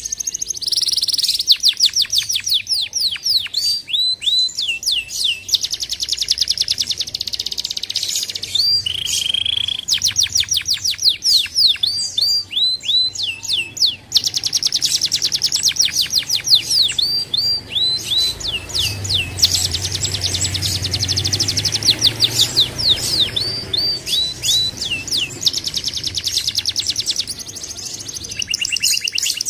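Domestic canary singing a long, continuous song: fast rolling trills alternating with runs of repeated down-slurred whistles, with a brief break about halfway through.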